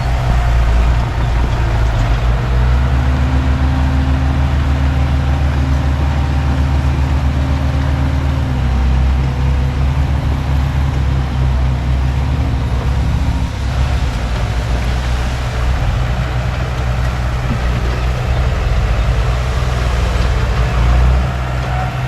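Komatsu D31P bulldozer's diesel engine running steadily at working speed, loud and deep, with a higher whine that holds for several seconds and drops a little about eight seconds in.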